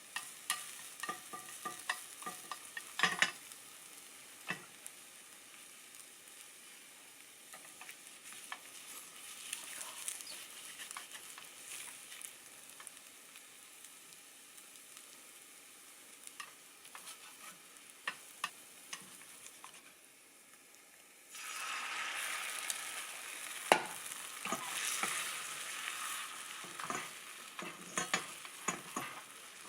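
Cooking in a frying pan: utensils clicking and tapping over a faint sizzle. About two-thirds of the way through, a much louder sizzle starts suddenly, as if food has gone into the hot pan.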